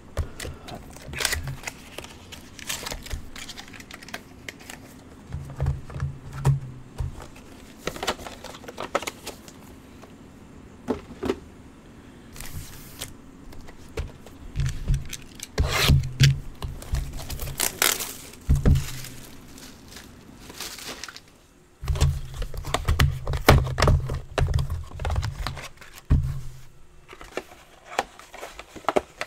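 Trading card packaging being torn open and cards handled: crinkling and tearing of wrappers, with scrapes and clicks of cards and low handling knocks on the table.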